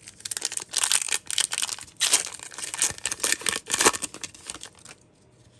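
Foil wrapper of a hockey card pack crinkling as it is torn open by hand. The crinkling stops about five seconds in.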